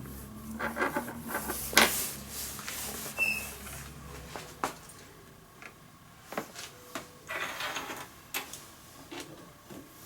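Handling noise as coaxial cables and connectors are worked by hand: scattered clicks and taps, the sharpest about two seconds in, and a short rustle near the end.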